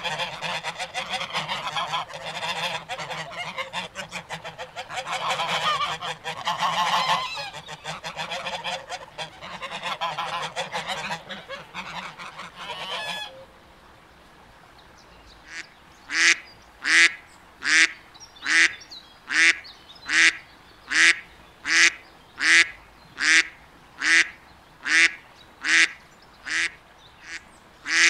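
A flock of waterfowl calling over one another in a dense, continuous chorus that cuts off suddenly about halfway. After a short lull, one bird calls over and over, loud and evenly spaced, a little more than one call a second.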